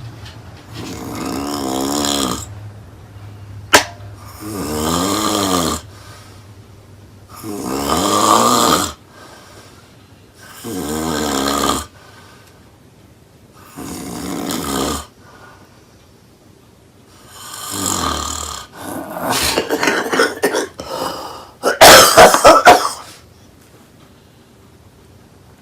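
A person snoring loudly, one rasping snore about every three seconds. A sharp click comes about four seconds in, and near the end the snoring breaks into a run of rapid, louder snorts.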